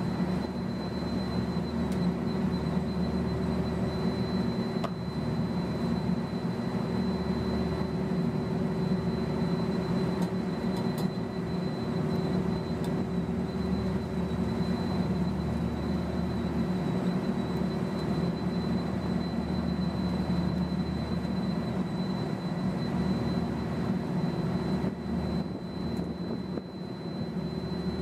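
Steady mechanical drone of rooftop air-cooled condenser units running, their fans making a constant low hum with a thin steady high whine over it.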